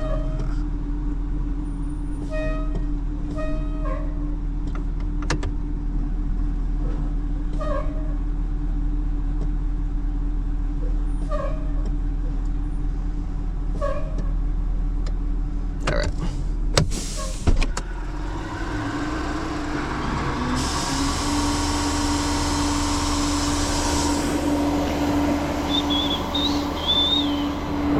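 Tow truck running steadily with a constant whine over the engine, short chirps now and then, two sharp clunks about 16 to 17 seconds in, and a hiss starting about 20 seconds in, after which the whine grows louder.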